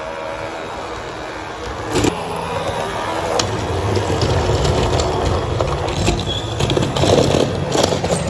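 HO-scale model WAG-9 electric locomotive running along the track: a steady low hum with clicks from the wheels over the rails. A sharp click comes about two seconds in, and the clicking and clattering grow busier over the last couple of seconds.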